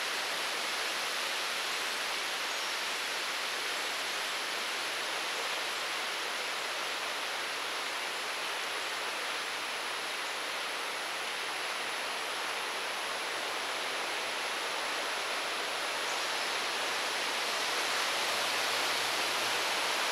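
A steady, even hiss with a faint, thin high whine above it. No bird call or wingbeat stands out.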